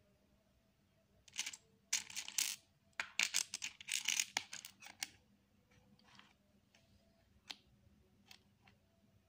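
Loose plastic Lego bricks clattering and rattling as hands sort through them, a dense run of about four seconds, then a few single clicks as pieces are picked up and set down.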